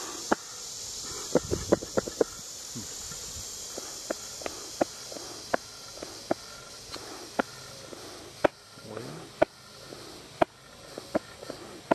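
Irregular sharp clicks and taps, roughly one or two a second, over a steady high insect hiss that fades about halfway through.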